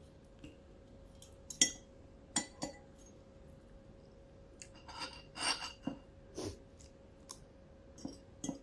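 Metal spoon and fork clinking and scraping on a ceramic plate in short, scattered taps. The busiest stretch comes about five to six and a half seconds in.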